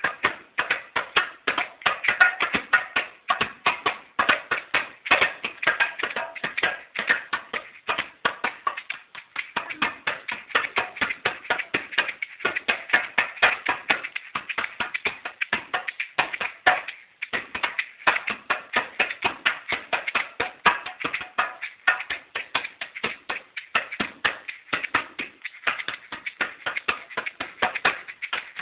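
Hand drumming on a small djembe: a quick, uneven run of open-hand strokes on the drum head, several a second, with hardly a break.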